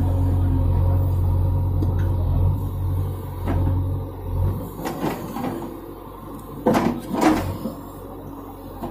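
JCB 3DX backhoe loader's diesel engine running as the backhoe digs, its low drone dropping away about halfway through. A couple of seconds later come two loud clanking knocks from the working backhoe arm and bucket.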